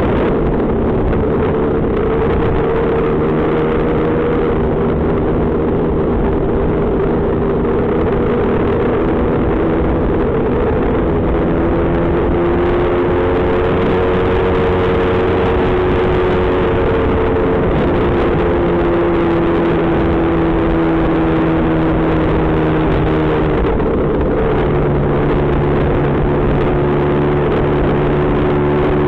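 Lambretta GP scooter's single-cylinder two-stroke engine running steadily while under way, its note rising and falling a little as the throttle changes.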